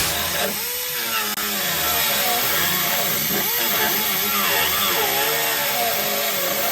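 Angle grinder with a cutting disc running under load, cutting through rusted sheet metal. Its pitch wavers up and down as the disc bites and eases off.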